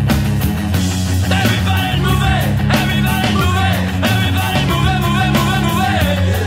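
Background music with a singing voice over a steady bass line.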